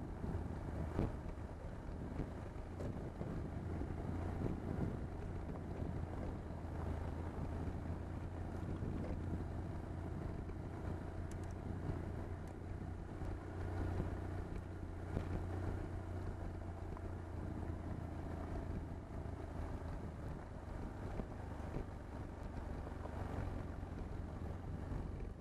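BMW R1150GS sidecar rig's boxer twin running at a steady road speed up a gravel road, a constant low drone, with wind rushing over the microphone and a few faint knocks.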